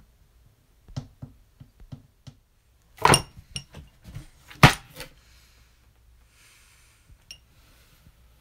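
Objects knocking and clinking: a string of light knocks, then two sharp bangs about a second and a half apart, the first with a glassy, ringing clink, followed by a few softer clicks, a faint hiss and one last high clink.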